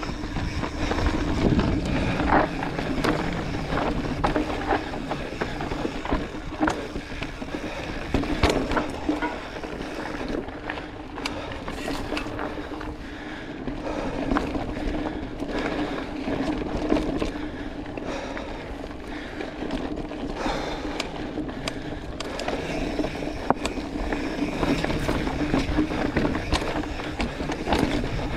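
Mountain bike rolling fast down a dry dirt trail: tyres on loose dirt and gravel under a steady hum, with frequent clicks and rattles from the bike over bumps.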